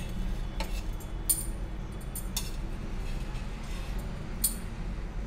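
Flat steel spatula tapping and scraping on a nonstick tawa while small rotis are flipped: a handful of sharp clinks, the loudest about a second in, over a steady low hum.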